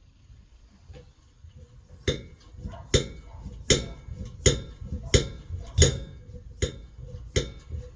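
Hand air pump being worked to pressurise a petrol stove's fuel tank, a sharp metallic clack at each stroke, about one every three-quarters of a second, starting about two seconds in.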